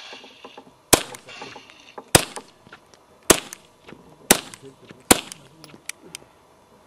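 Suppressed pistol firing five shots, sharp cracks about a second apart, with a few fainter clicks after the last shot.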